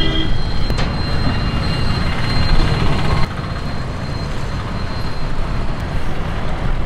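Road traffic passing close by: a steady rumble of engines and tyres, louder at first and dropping suddenly about three seconds in.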